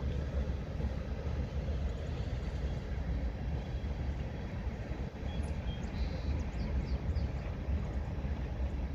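Freight train of tank cars rolling slowly along the track, a steady low rumble.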